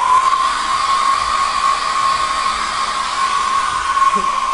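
Handheld hair dryer running steadily: a constant high whine over a rush of air.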